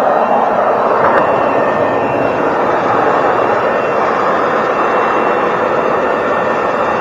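Loud, steady power-tool noise with no break.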